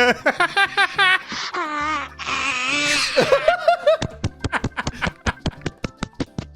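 Laughing in short repeated bursts that rise into a high squeal, then a fast run of sharp taps, about five a second, over the last two and a half seconds.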